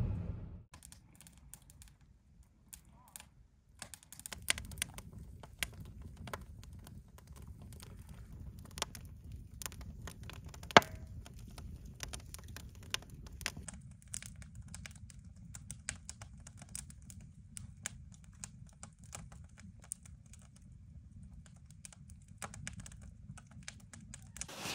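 Wood campfire crackling in a metal fire ring, a steady scatter of sharp snaps and pops over a low hiss, with one louder pop about halfway through. Car road noise fades out in the first moment.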